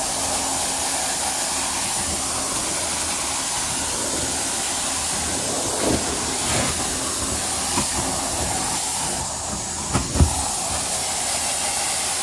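Carpet-cleaning extraction stair tool on its hose, spraying and sucking as it is drawn across stair carpet: a steady, loud rushing hiss. A few knocks come as the tool bumps the treads, the loudest about ten seconds in, and the hiss dips briefly just before it.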